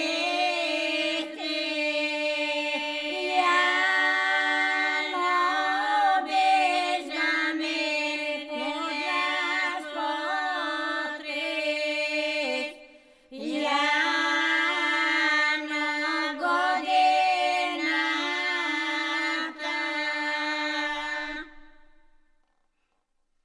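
Bulgarian folk song sung a cappella by a group of voices in two parts: one part holds a steady low drone while the other carries the melody above it. The singing breaks off briefly about halfway and ends near the close.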